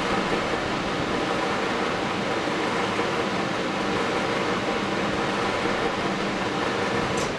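Steady hum and hiss of an LCD refurbishing machine's motor running. It stops with a brief click near the end.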